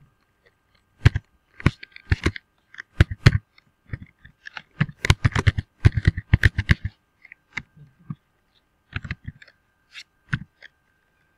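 Typing on a computer keyboard: irregular key clicks, with a quick run of keystrokes around the middle.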